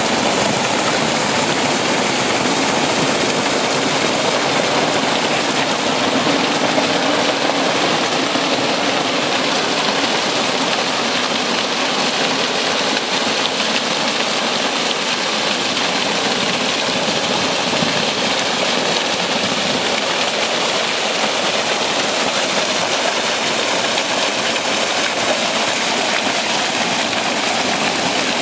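Karst spring water gushing up out of the ground and splashing and foaming down over rocks: a loud, steady rush of water.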